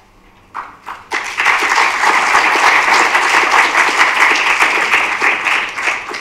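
Audience applauding: a few scattered claps, then applause swells in about a second in, holds steady and dies away near the end.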